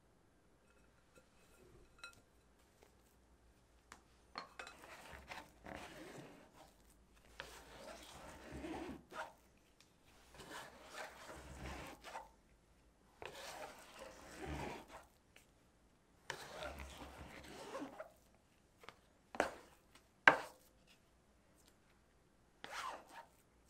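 Kitchen utensil working in a mixing bowl: repeated scraping and stirring strokes of a second or two each with short pauses, then a few sharp knocks against the bowl near the end, one of them much louder than the rest.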